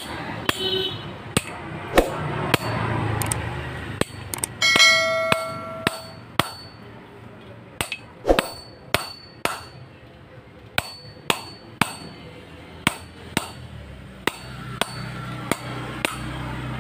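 Hand hammer striking the steel camshaft of an R175 single-cylinder diesel engine to drive its worn ball bearing off the shaft. It makes a long series of sharp metal blows, more than twenty, coming in uneven runs of about one or two a second, with one blow about five seconds in that leaves a ringing clang.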